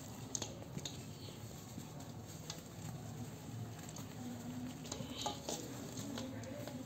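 Lumps of dry red clay crumbled and crushed by hands, with scattered small crunches and the patter of powder falling onto a heap of clay in a metal basin.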